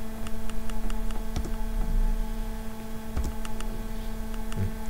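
Steady electrical hum with faint, quick ticking running through it, several ticks a second, and a few soft low thumps.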